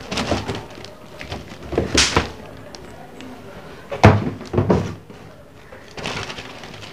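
A circuit board in a clear plastic bag being handled, giving crinkling and rustling of the plastic and a few knocks. The loudest is a single thud about four seconds in, followed by a couple of lighter knocks.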